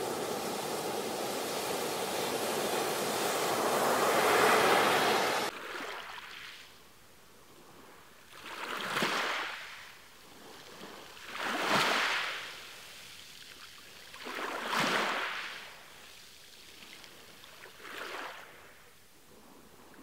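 Ocean surf breaking on a beach, a steady rush of water that cuts off abruptly about five seconds in; after that, four separate waves swell and fade, roughly every three seconds.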